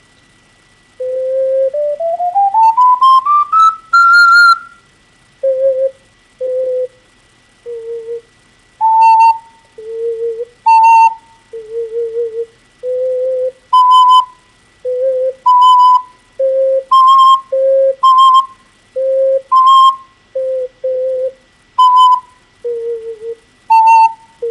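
STL Enigma ocarina played solo, showing off its subholes: a quick stepwise rising scale of pure whistle-like notes, then short separate notes leaping back and forth between a low register and notes about an octave higher.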